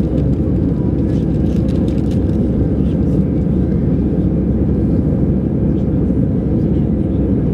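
Airbus A319 cabin noise during the climb after takeoff: engines and rushing air heard from inside the cabin as a deep, even rumble with no change in level.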